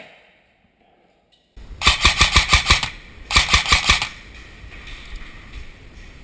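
Airsoft rifle firing two full-auto bursts of BBs, about seven shots a second: a longer burst of about a second, then a shorter one after a brief pause.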